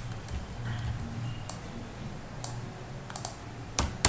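Irregular clicks of a computer mouse and keyboard, about eight in four seconds, the loudest near the end, over a low steady hum.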